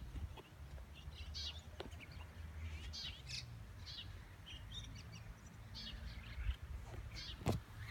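Small birds chirping, with short high calls scattered throughout over a low steady rumble. A single sharp click about seven and a half seconds in is the loudest sound.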